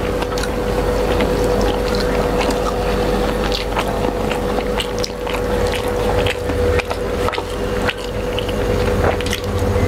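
Close-miked eating: chewing and mouth sounds with fingers mixing rice on steel plates, many small irregular clicks over a steady low hum.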